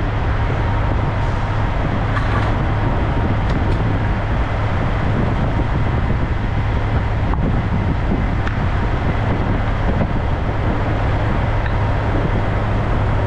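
A Kenworth W900L semi truck running down the road, heard from inside the cab: the steady low drone of its Cummins X15 diesel over a constant wash of road and tyre noise.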